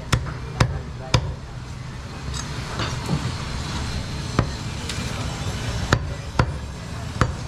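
Butcher's cleaver chopping goat meat on a wooden log chopping block: sharp single chops about a second apart, several in quick succession near the start and more spread out later. Steady low market hum underneath.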